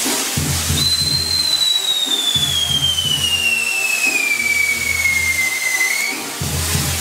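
Whistling firework on a castillo firework tower: one long whistle that starts about a second in and falls steadily in pitch for about five seconds, turning slightly upward just as it stops, over a hiss of burning pyrotechnics.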